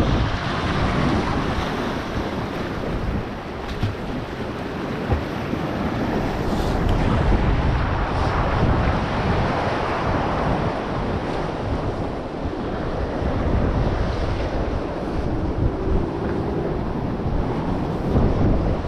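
Sea surf washing and splashing against the boulders of a rock jetty, with steady wind buffeting the microphone.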